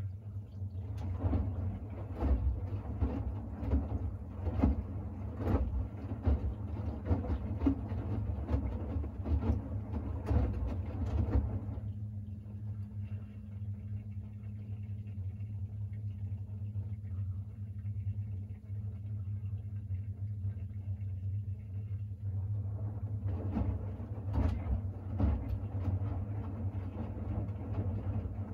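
Siemens iQ700 front-loading washing machine in its main wash: the drum tumbles a load of shirts through water with a steady low hum and irregular sloshing and thudding. The tumbling stops about twelve seconds in, leaving only a steady hum and a faint whine, and starts again about 23 seconds in.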